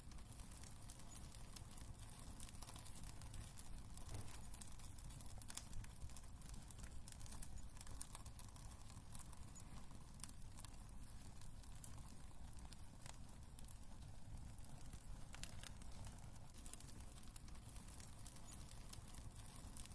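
Wood fire crackling in a fireplace: scattered sharp pops and snaps over a low, steady rumble.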